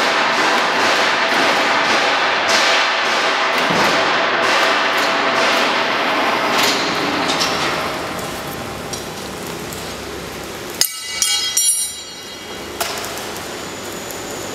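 Large steel duct section being moved on a wheeled cart, with a dense rumble and repeated metal knocks and clanks that ease off after about eight seconds. A short squeak-like burst follows about eleven seconds in.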